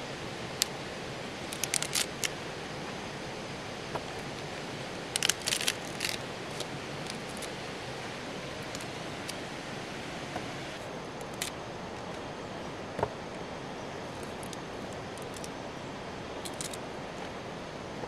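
A steady outdoor hiss with sharp snaps and clicks now and then, some coming in quick runs of three or four, the loudest run about five seconds in.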